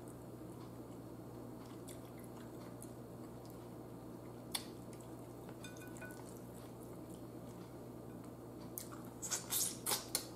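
Close-miked eating of roasted pork neck bones: soft chewing and small clicks over a steady low hum, one sharp click about halfway through, then a quick run of loud wet mouth smacks near the end as fingers go to the mouth.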